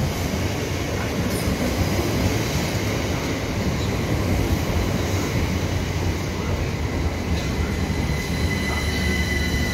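Southern Class 377 Electrostar electric multiple unit running into the platform: a steady rumble of wheels on the rails with a thin, steady high whine over it.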